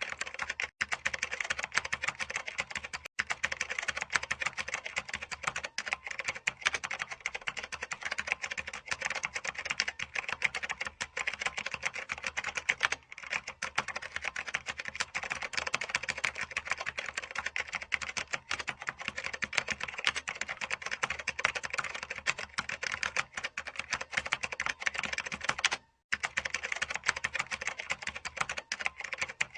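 Computer keyboard being typed on fast and without pause, a dense run of key clicks, with brief breaks about 13 and 26 seconds in.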